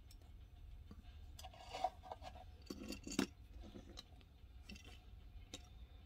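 Faint handling sounds of a small diecast model car and its display box being set down and moved on a tabletop: a few light clicks, taps and rustles, the loudest about three seconds in.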